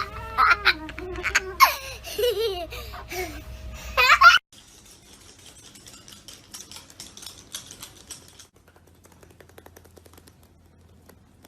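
Parrot making laugh-like calls, with bending and gliding pitch and a sharp rising squawk at the end. Then they cut off suddenly, leaving faint clicking and tapping.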